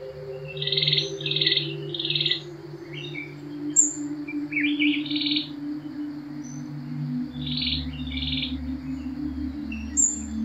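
Birds chirping in short clusters of calls every few seconds, over a soft, low, sustained ambient music drone that slowly slides down in pitch.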